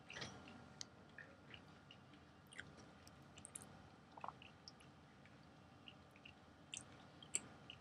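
Faint chewing of a biscuit, with scattered small clicks and crumbly crackles over a quiet room hiss; the sharpest clicks come near the end, as the biscuit is handled and broken by hand.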